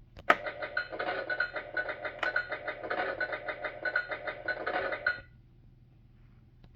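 Fisher-Price Great Adventures Magic Castle playing the Wizard figure's electronic sound effect through its small tinny speaker. It is triggered with a sharp click, runs for about five seconds with a pulsing, repeating note, and cuts off suddenly.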